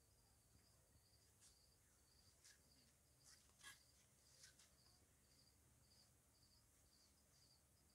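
Near silence, with an insect chirping steadily and faintly, about two high chirps a second, and a few faint clicks in the middle.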